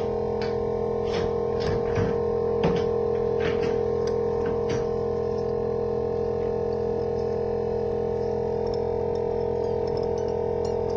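A thin 0.028 cutting wire drawn through the cured adhesive to separate an OLED screen's layers, giving a run of short, string-like scraping twangs over the first five seconds or so. Under it, a steady hum runs throughout.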